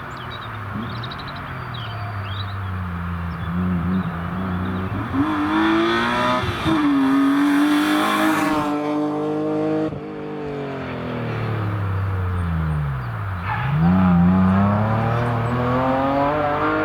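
Rally car engine revving hard as the car comes through, its pitch climbing through the gears. About two-thirds of the way in the revs drop sharply, then climb again as the car pulls away.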